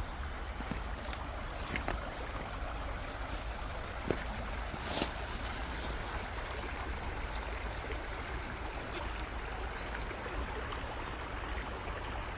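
Mountain stream running with a steady rush of water, under a low rumble of wind on the microphone. A few light clicks, the sharpest about five seconds in.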